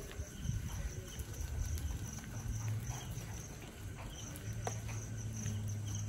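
Honeybees buzzing, a low hum that swells about two seconds in and again from about four and a half seconds.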